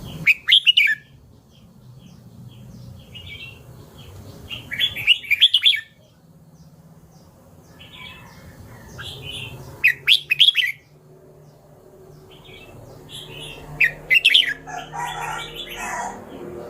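Red-whiskered bulbul singing: short, loud, warbling song phrases about every four to five seconds, with softer chirps between them.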